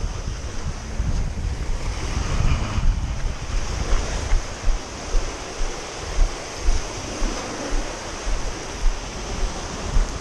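Small waves breaking and washing up a gravel shore in a steady hiss, with wind buffeting the microphone in repeated low thumps.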